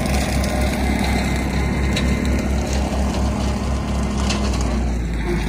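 Compact tractor running with a rear rotary brush cutter engaged while cutting a trail through brush. It makes a steady engine drone with a fast low throb that smooths into an even hum near the end.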